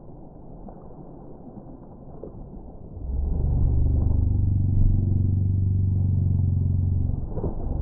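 A steady low motor hum that starts suddenly about three seconds in, holds an even pitch, and stops about four seconds later.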